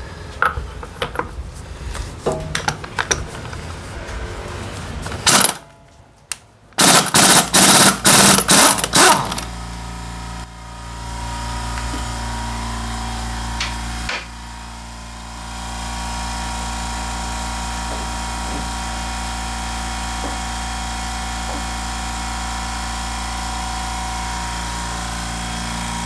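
Metal tools clinking as a 24 mm socket goes onto a scooter's rear axle nut, then an impact wrench hammering in a string of about seven loud bursts over two seconds to break the nut loose. After that a steady machine hum runs on.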